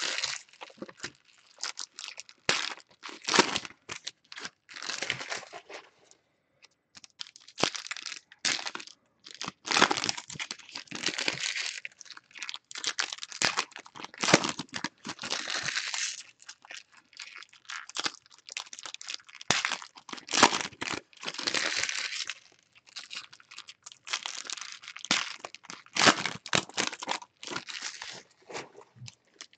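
Plastic wrapping and foil card-pack wrappers of a box of baseball cards being torn open and crinkled by hand, in irregular bursts with sharp crackles.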